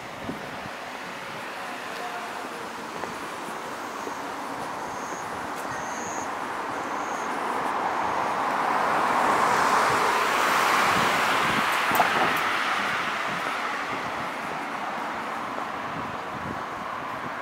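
A road vehicle passes on the street, its tyre and engine noise swelling slowly to a peak about ten seconds in and then fading away.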